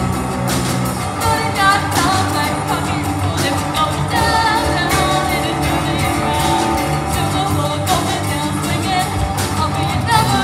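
Live band playing a pop song with a singer, drums keeping a steady beat under the vocal.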